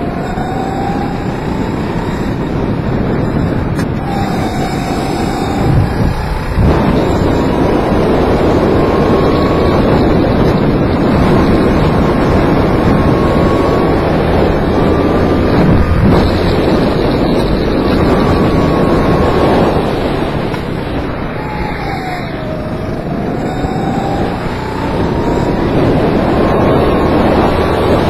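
Kart engine heard onboard under heavy wind noise on the microphone, its pitch climbing steadily on the straights and dropping as it slows for corners, once about four seconds in and more deeply about twenty-one seconds in.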